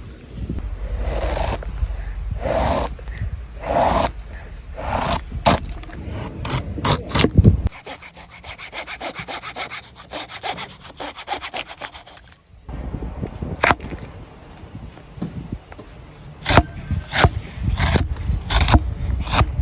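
Wood being sawn by hand: a run of back-and-forth saw strokes that quicken in the middle, then a quieter stretch of light rapid scraping before the strokes return.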